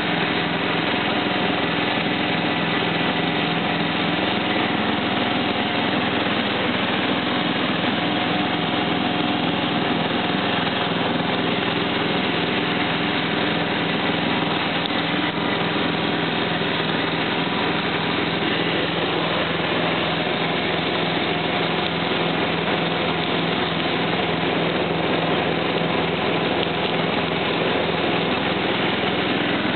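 Simplicity 4211 garden tractor's engine running steadily as the tractor drives along.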